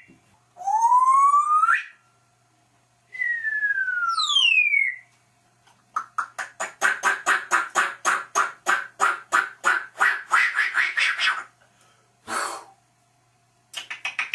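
A parrot whistling and calling: a rising whistled glide, then a falling one, followed by a rapid run of short repeated notes at about five a second for several seconds and a couple of shorter bursts near the end.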